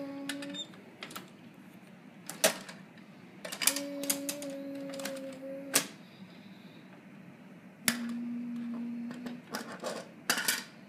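Plastic clicking and clattering as a toy MAN garbage truck's bin lifter and toy wheelie bins are worked by hand, in quick irregular clusters. Three times a steady hum sounds for about two seconds, the last one lower.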